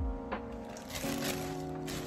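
Soft background music with held notes that change about halfway through.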